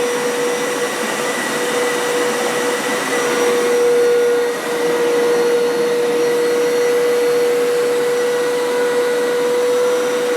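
Hoover Power Scrub Deluxe FH50150 upright carpet washer running through washing strokes on stained carpet, its suction motor a steady high whine. The whine dips briefly about four and a half seconds in.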